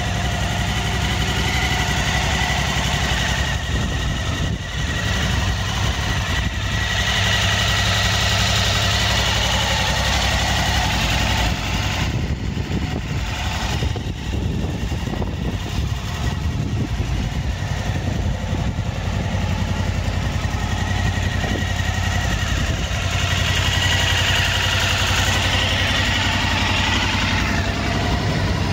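Suzuki V-Strom 1000's V-twin engine idling steadily.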